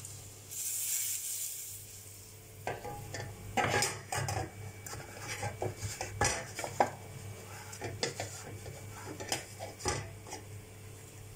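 Spice powders tipped into hot ghee in a steel kadai, sizzling briefly from about half a second in. A run of sharp steel clinks and knocks follows as a steel spoon and plate are handled among steel vessels.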